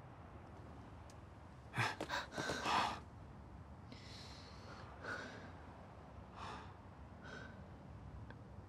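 A woman's sharp gasps and heavy breathing: a loud cluster of breaths about two seconds in, then a few softer breaths. A low, steady rumble sits underneath.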